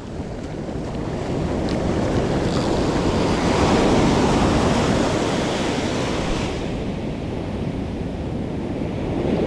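Ocean surf washing up the beach, with wind buffeting the microphone; a wave surges in and swells to its loudest a few seconds in, then eases off.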